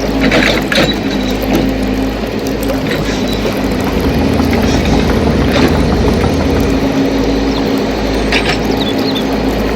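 1/16-scale RC excavator running: a steady mechanical hum with a few scattered clicks and scrapes as the machine works.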